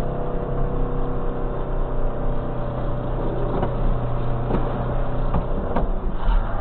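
A truck engine running steadily, heard from inside the cab, with a few sharp knocks a little over halfway through.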